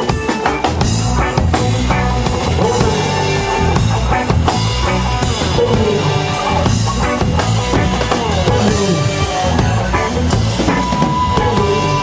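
Live reggae band playing: drum kit, bass guitar and electric guitar together with a steady beat, and a held note near the end.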